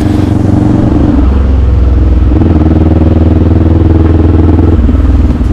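Kawasaki Z400 parallel-twin motorcycle engine running loud and steady, its drone shifting in pitch a few times as the revs change.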